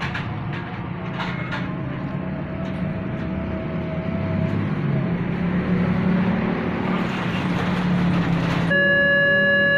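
Road traffic with vehicle engines running, then about nine seconds in a railway level crossing's electronic warning siren switches on abruptly with a steady, loud electronic tone.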